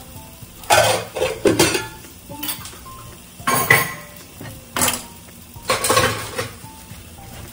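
Stainless steel bowls and utensils clattering as they are picked up and set down on a kitchen counter, about half a dozen sharp clinks and knocks.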